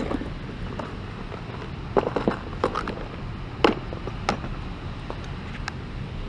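Handling noise: a handful of short, sharp clicks and knocks, irregularly spaced and bunched in the middle, as fishing gear is handled, over a steady low rumble.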